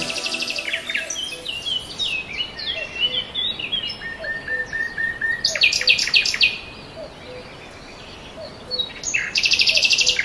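Several forest birds calling at once: quick chirps and whistles, a run of evenly spaced whistled notes, and a soft low note that repeats steadily underneath. Harsh, buzzy calls come in loudly around the middle and again near the end.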